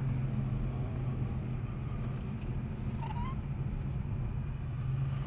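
Steady low hum of a car's engine and cabin noise, with one short high squeak about three seconds in.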